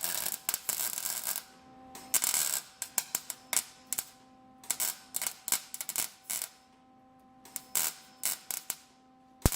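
Irregular sharp metallic clicks and taps with a couple of short crackling bursts, from work on a car body panel being clamped and tacked in place.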